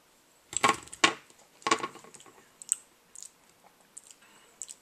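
Wet mouth sounds of a person tasting a spoonful of creamy, gritty habanero chili sauce: two loud smacking slurps in the first two seconds, then softer lip and tongue clicks.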